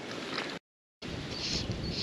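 Outdoor ambience with a soft, even hiss, broken by a moment of dead silence a little over half a second in. After the gap a high chirp starts repeating about twice a second.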